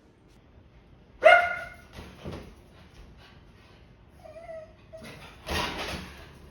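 Dog barking and yipping: a loud, sharp bark about a second in, then smaller yelps, a short whine and another bark toward the end.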